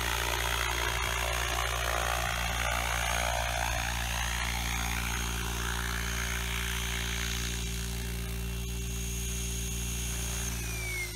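Small unmanned helicopter's rotor and drivetrain running steadily with a high whine as it descends and touches down. Near the end the pitch starts to fall as it spools down.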